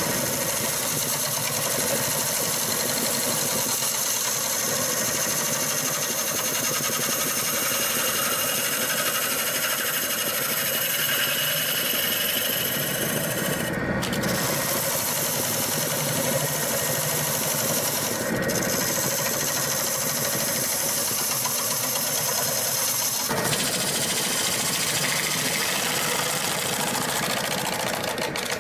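Wood lathe spinning a large maple bowl while a bowl gouge cuts into the wood: a steady motor whine under the continuous hiss and rasp of the cut. The high cutting noise drops out briefly twice, and the sound changes abruptly about two-thirds of the way through.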